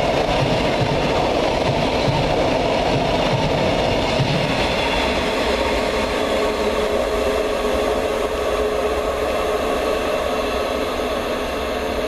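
Wagon wheels of a passing engineering train rumbling and clattering over the rails as the last flat wagons go by; about five seconds in the low rumble dies away as the train draws off, leaving a steadier, fainter running sound.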